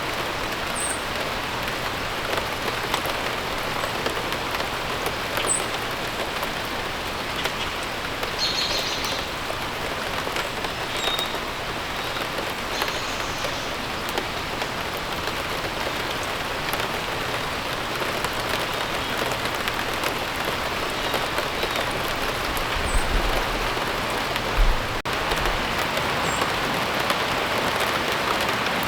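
Steady rain falling, with a few short, high bird chirps scattered through it. A few low thumps come near the end.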